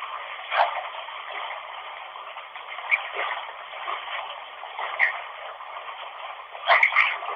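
Steady hiss of running water, heard thin and band-limited like a radio, with short louder blips about half a second in, near three and five seconds, and a close pair near the end.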